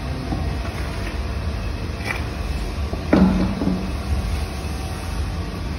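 A single hollow thump about three seconds in, with a short low ring after it, over a steady low workshop hum; a faint click comes a second before it.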